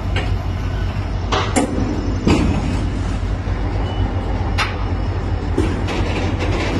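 Freight train of petroleum tank wagons rolling past close by: a steady low rumble from the wagons and wheels, broken by several sharp knocks.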